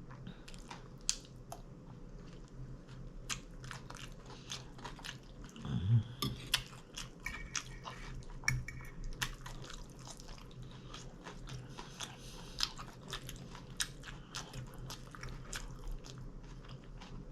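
Close-up chewing and crunching of taco salad, with many short crisp crunches throughout. A brief hummed "mmm" comes about six seconds in.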